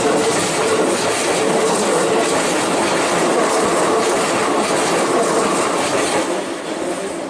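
A Keikyu Line train running past at close range: steady, loud wheel-on-rail noise that eases off near the end.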